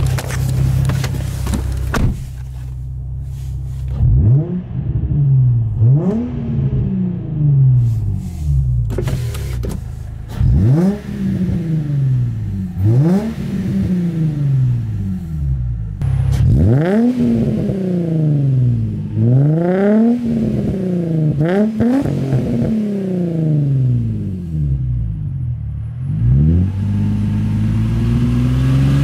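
Infiniti G35's VQ35DE 3.5-litre V6 idling, then free-revved over and over, about one rise and fall in pitch every two seconds, through a newly fitted stainless eBay Y-pipe. The revs are heard from inside the cabin with a window open a bit, and from behind the car near the end.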